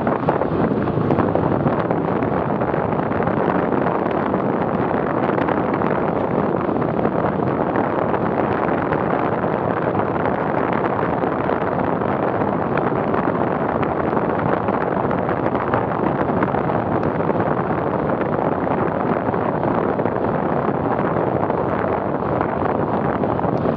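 Wind rushing steadily over the microphone of a camera on a bicycle moving at about 40 km/h, with no other distinct sounds.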